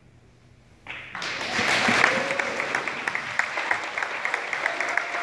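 Audience applause breaking out suddenly about a second in and carrying on as dense, steady clapping.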